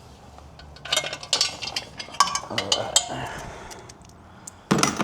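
Metal hand tools clinking and clattering, a socket and extension being handled and set down, a run of sharp clinks in the middle and a louder clank near the end.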